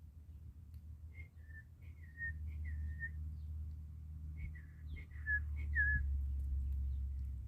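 A person whistling a string of about ten short, clear notes, some sliding slightly down in pitch, over a steady low rumble.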